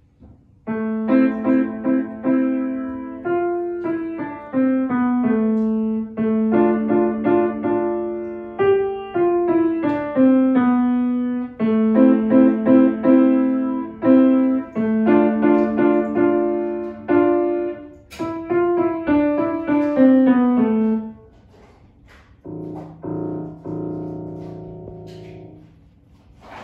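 Grand piano played by a child: a simple beginner-level piece of short repeated phrases in the middle register, which stops about three-quarters of the way through. After a short pause, a few lower notes and chords sound and then stop.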